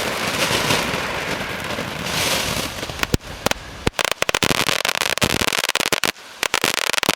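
Firework fountain spraying with a steady hiss, then breaking into a rapid run of sharp crackling pops about three seconds in, which goes on until near the end.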